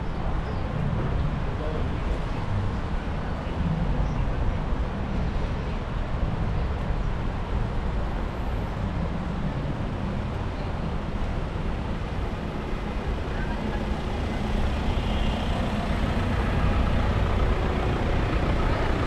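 City street traffic: a steady rumble of cars and buses running past, with indistinct voices of passersby.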